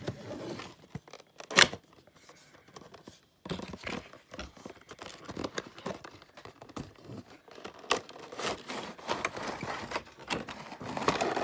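Cardboard toy box being opened by hand. A sharp snap comes about one and a half seconds in, then a run of paper rustling, scraping and plastic crinkling as the flaps are pulled open and the clear plastic insert and booklet come out.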